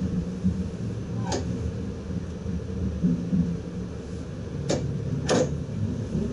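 Steady low hum inside the cab of an ICM electric multiple unit standing at a platform. Three short sharp knocks cut through it: one just over a second in, and two close together near the end.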